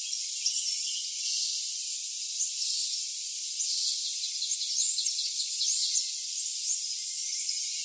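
Crickets trilling in a steady high drone, with songbirds chirping over them in quick runs of short high notes that are busiest through the middle. The sound is thin and all high-pitched, with nothing low in it.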